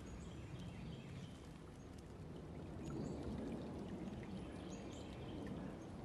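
Small stream flowing and gurgling steadily, with a few brief, faint high chirps above it.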